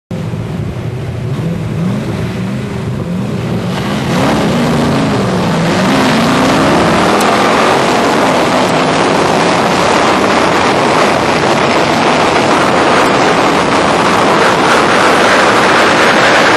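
Race car's V8 engine heard from the open cockpit as the race starts. For the first few seconds the revs rise and fall; about four seconds in it gets louder and holds a steady full-throttle run under a heavy rush of wind as the car speeds up.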